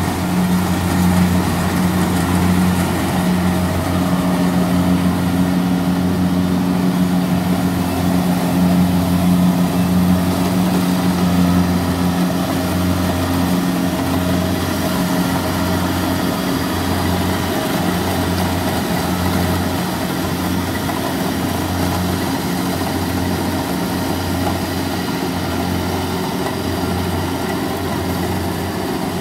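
Kubota DC-70 combine harvester's diesel engine running steadily as the machine cuts rice, with a slight even pulsing in its note; it grows a little fainter in the second half as the harvester moves away.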